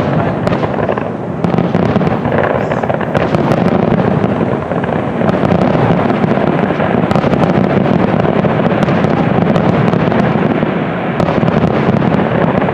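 Fireworks finale barrage: many aerial shells bursting in quick succession, the booms running together into a continuous loud rumble with sharp cracks on top.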